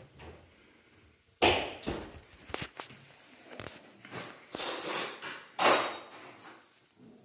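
Cat playing with a foam earplug on a tile floor, making irregular knocks and scuffs as it bats at and scrabbles after it. The loudest is a sudden knock about a second and a half in.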